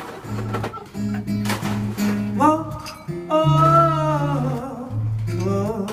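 Live band music: acoustic guitar strumming over a walking bass line, with a held melody note that wavers in pitch about halfway through.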